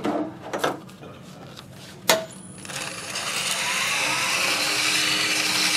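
A few light clicks of handling, then a sharp click about two seconds in as the wood lathe starts. Sandpaper then hisses against the spinning wooden blank, building up over a second or so and holding steady, with a thin high whine from the lathe's motor.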